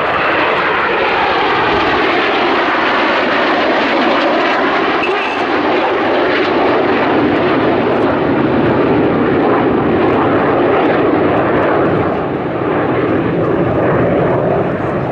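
Several BAE Hawk T1 jets flying in formation: the steady, loud rushing noise of their single Rolls-Royce Adour turbofans, holding an even level throughout.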